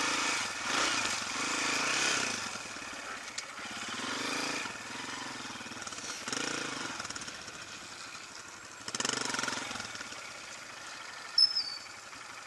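Dirt bike engine revving in repeated bursts, rising and falling as a rider works through thick mud. Near the end come two short, high, downward chirps.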